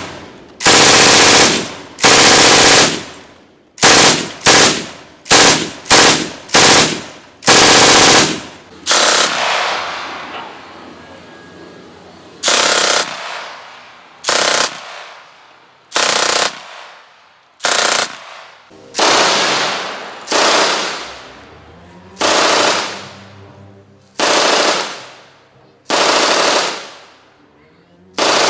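MG42 machine gun firing a string of short bursts at its very high rate of fire (about 1,200 rounds a minute), each burst a fast ripping sound with a fading echo. A rapid run of short bursts comes close together in the first several seconds; later the bursts come every second or two.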